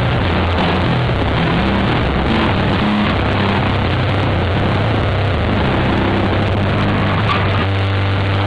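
Rock band playing live and loud: electric bass holding low notes under drums and electric guitar, with no singing.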